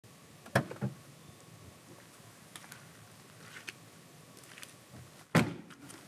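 Ram pickup truck door: two sharp clunks just after the start, then the door shut with a loud thud about five and a half seconds in. Faint clicks and rustles fall between.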